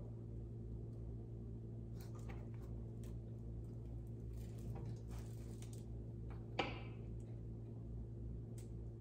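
Faint handling sounds of canvas wall prints being pressed and positioned against a wall on Velcro picture-hanging strips: soft taps and rustles, with one short, sharp click about two-thirds of the way through, over a steady low hum.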